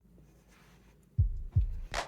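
Background music: after a quiet second, two deep bass-drum kicks and a sharp click as the beat comes in.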